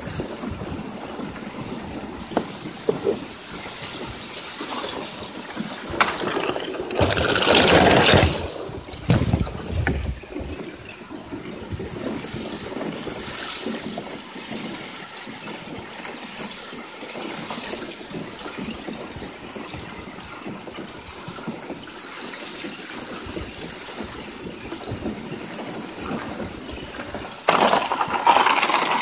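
Water and loose shards of breaking-up lake ice washing and rustling against a kayak as it moves through the ice floe. The sound swells louder for a couple of seconds about seven seconds in and again near the end.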